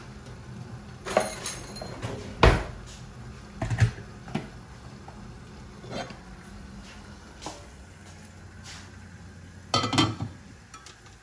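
Kitchen clatter: a string of separate knocks and clinks of cookware, lids and utensils, the loudest about two and a half seconds in, over a low steady hum. Near the end a quick cluster of clinks as the rice cooker's glass lid is handled.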